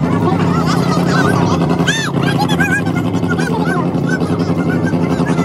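A loud car engine held at steady revs with a fast rattling pulse, and many short high-pitched chirps over it.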